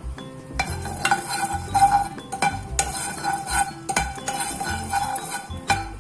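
Spatula stirring dry-roasting peanuts and chana dal in a nonstick frying pan, starting about half a second in. The nuts and lentils rattle and scrape against the pan with many sharp clicks.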